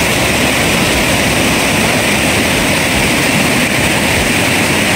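River water rushing over rocks: a loud, steady, even noise that holds without change.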